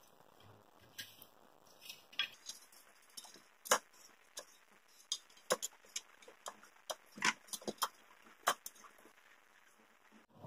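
Knife blade working against a stainless steel plate while a sun-dried mango sheet is peeled off it: faint, irregular light clicks and ticks.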